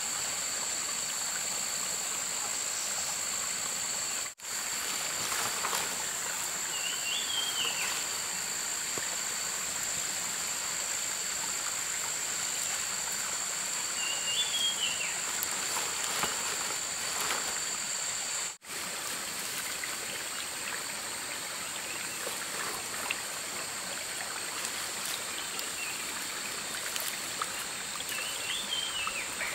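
Steady outdoor ambience with a hiss like running water and a high, steady tone over it. A short chirp comes three times.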